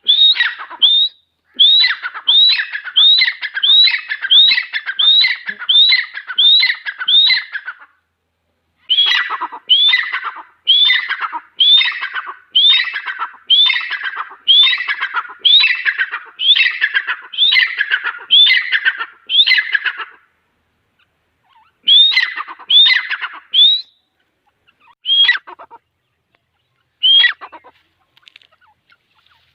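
Grey francolin calling: long runs of loud, sharp repeated notes, each dropping in pitch, with pauses between runs and a few single calls near the end as it tails off.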